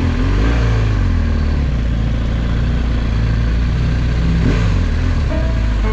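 BMW R1200 GS flat-twin boxer engine running while the bike rides slowly through traffic, its pitch rising and falling briefly about half a second in and again about four and a half seconds in.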